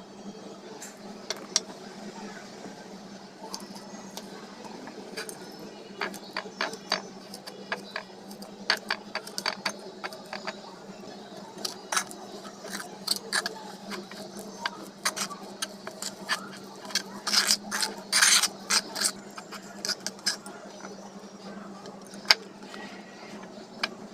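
Slime being handled and worked, giving scattered sharp clicks and pops that are busiest about three-quarters of the way through, over a steady low hum.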